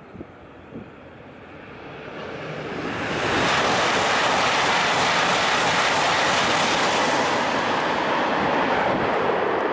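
Tohoku Shinkansen E5-series high-speed train passing at speed close by and running into a tunnel hood. A rushing roar builds quickly about two seconds in and holds loud until near the end, easing slightly as the train goes into the tunnel.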